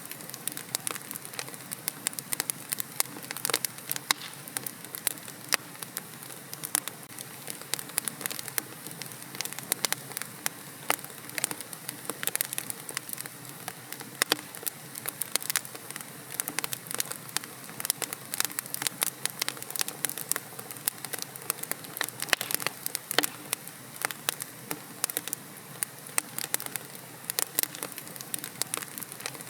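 Wood fire crackling in a fireplace: a steady hiss dotted with frequent, irregular sharp pops and snaps.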